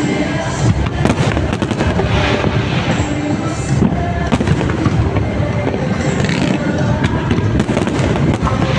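Fireworks bursting in quick succession, many bangs and crackles overlapping, with music playing underneath.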